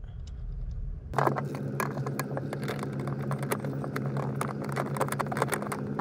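Irregular small metallic clicks and taps of hardware being worked onto a clutch pedal bracket stud with a socket. A steady low hum sets in about a second in and stays under the clicks.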